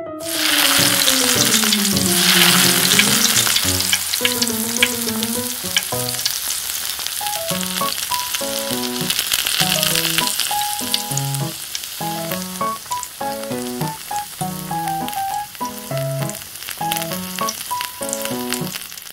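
Flour-coated fish pieces deep-frying in hot oil in a miniature pan, a loud crackling sizzle that starts abruptly as they go into the oil and then keeps on steadily. Light piano background music plays underneath.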